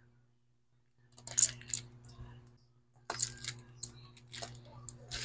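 Small hard parts and tools clicking and clattering as they are handled and set down, in several quick bursts after a quiet first second, over a faint steady electrical hum.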